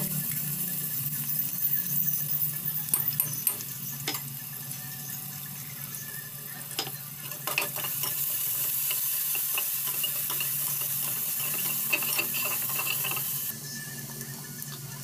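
Sliced onions sizzling in oil in an aluminium pressure cooker, with a steel spatula scraping and clinking against the pot as they are stirred. The sizzle grows louder about eight seconds in and drops back shortly before the end.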